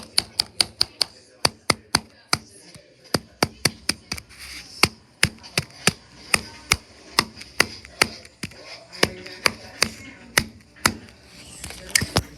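A screwdriver repeatedly striking a flip phone: a long run of sharp taps, about three a second, with a few short pauses.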